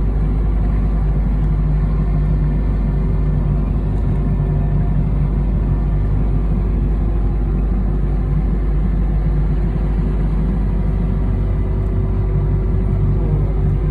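Motorboat engine running steadily at cruising speed, a constant low drone with no change in pitch.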